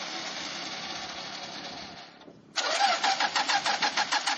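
A pickup's starter motor cranking the engine from a bit past halfway, a fast, even chug of about five strokes a second; the engine does not catch. Before it, a steady hiss fades out over about two seconds.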